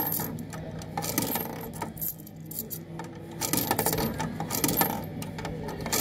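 Coins clinking and rattling at a coin-operated kiddie ride's coin slot as two coins are fed in, a run of irregular small metallic clicks.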